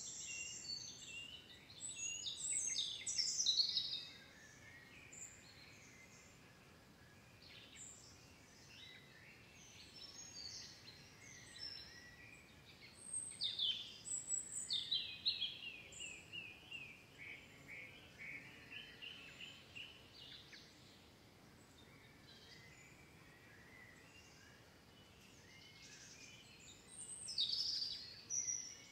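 Birds chirping and singing in bursts, loudest a few seconds in, in the middle and near the end. In the middle comes a long run of repeated short falling notes, over a faint steady hiss.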